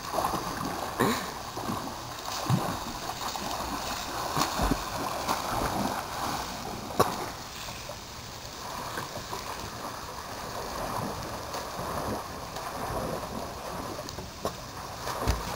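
Water splashing in a swimming pool as a garden hose sprays a jet across the surface and a swimmer thrashes in it: a steady rushing splash with a few sharper splashes.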